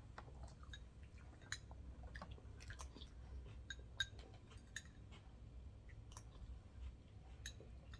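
Close-miked chewing: soft, irregular wet mouth clicks, with a few sharper clicks about a second and a half in, around four seconds in, and near the end.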